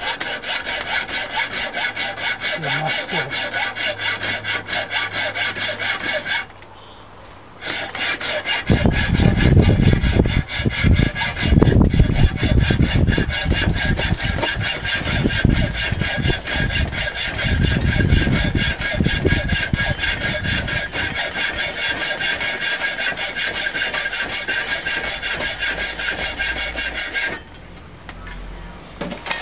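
Hacksaw cutting a ribbed steel bar clamped in a bench vise, in steady back-and-forth strokes. The sawing pauses briefly about seven seconds in, a deep low rumble joins the strokes through the middle stretch, and the sawing stops shortly before the end.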